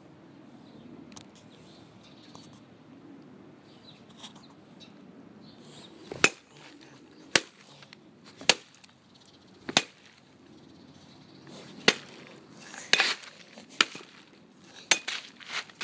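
A pumpkin being smashed by a series of sharp blows. The blows start about six seconds in, come roughly one a second, and crowd closer together near the end, about nine in all.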